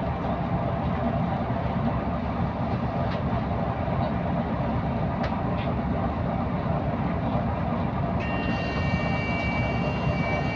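Steady running and road noise heard from inside a double-decker bus, with a few faint, isolated ticks. About eight seconds in, a steady high-pitched tone joins it.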